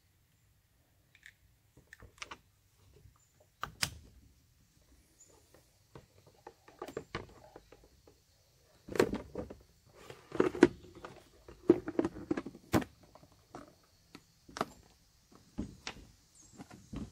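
Scattered clicks, knocks and plastic rattles as parts are handled on top of a small Suzuki four-stroke outboard and its top cowling is fitted back on. The loudest knocks come in the middle.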